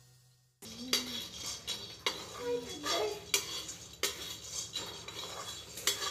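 A metal spatula scraping and clanking against a steel kadai as shelled peanuts are stirred and roasted. It starts about half a second in, with sharp knocks of the spatula on the pan every second or so.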